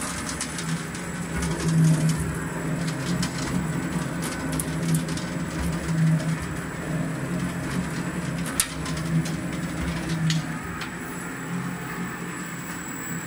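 Drum separator for vermicompost turning, its gear motor running at low speed with a low, wavering hum, and scattered light ticks of compost tumbling and falling inside the drum.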